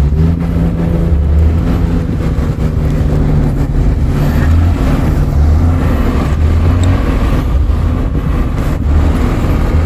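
Car engine running steadily, its low hum continuing throughout.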